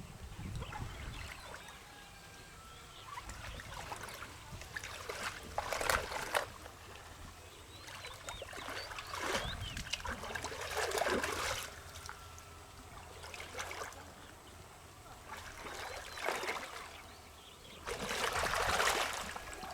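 Water splashing and sloshing in several short bursts a few seconds apart, with trickling in between.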